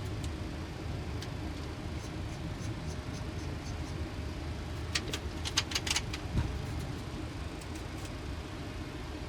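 Steady low rumble on a Boeing 737 flight deck while the airliner taxis in. A quick run of sharp clicks comes about five to six seconds in.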